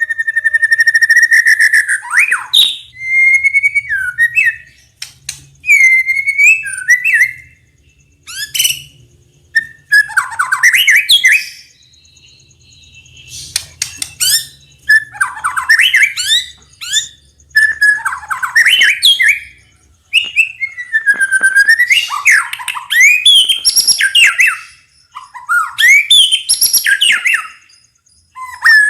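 White-rumped shama singing loud, varied phrases of clear gliding whistles and rapid chattering notes. Each phrase lasts a second or two, with short pauses between.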